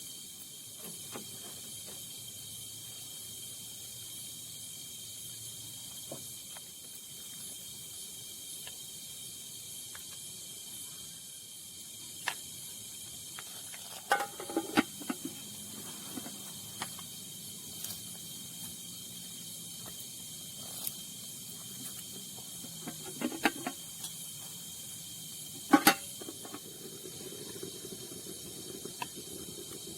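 Steady high-pitched chorus of night insects, crickets among them, droning without a break. It is broken by scattered clicks and knocks of things being handled, bunched about halfway through and with one sharp knock near the end.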